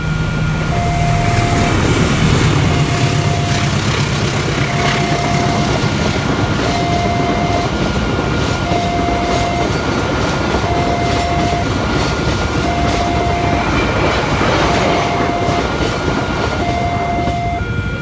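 A passenger train rolling past a level crossing, its wheels clattering over the rail joints. Over it, the crossing's electronic warning alarm sounds two alternating tones, each about a second long, repeating steadily.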